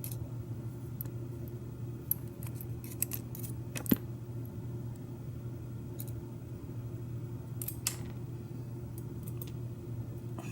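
Small metal clicks and light scrapes from handling a Schlage pin-tumbler lock cylinder's pins, springs and screwdriver, with one sharp click about four seconds in and another near the end. A steady low hum runs underneath.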